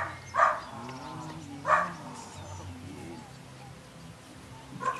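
Belgian Malinois puppy sniffing with its nose in a cardboard box: a few short, sharp sniffs over a low steady hum.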